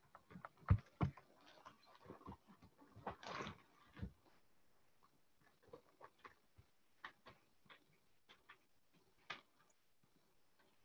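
Faint handling noises picked up by an open microphone: scattered light clicks and knocks, with a short rustle about three seconds in.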